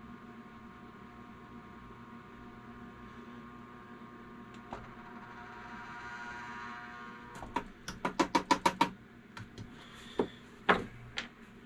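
Electric lead-melting pot giving a steady hum with many overtones, growing louder as a steel clip held in pliers is dipped in the molten lead to melt the lead off it. About eight quick metal clicks follow in a rapid run, then a few single clicks near the end.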